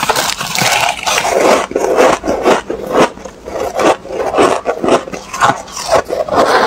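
Close-miked crunching of freezer frost being chewed, a rapid, irregular crackle, with a spoon scraping through the frost in the bowl.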